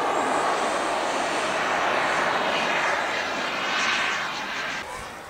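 Radio-controlled model jet flying overhead, its engine making a steady rushing jet noise that swells around the middle and then fades away near the end as the plane draws off.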